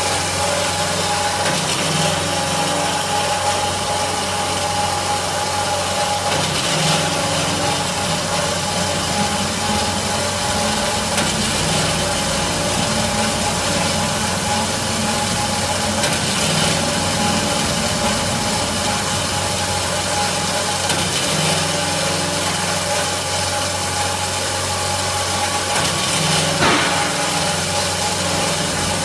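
IMET KS-1202 NC metal-cutting band saw running steadily, a constant machine hum with a few steady tones and a few faint ticks.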